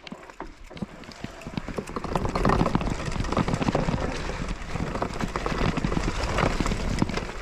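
Mountain bike rolling down a rough forest trail, its tyres, frame and chain rattling and knocking over bumps, quickly getting louder over the first two seconds.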